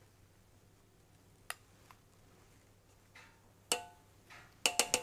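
A few sharp clinks with a short ring as a glass bowl of egg yolks is scraped out with a spatula against the stainless steel bowl of a Magimix Cook Expert: one about a second and a half in, another past halfway, then a quick run of clinks near the end.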